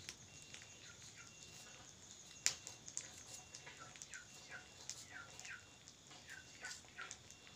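Chicks peeping faintly: short falling peeps, about two a second. Light clicks of a small knife peeling and cutting taro run through them, with one sharper knock about two and a half seconds in.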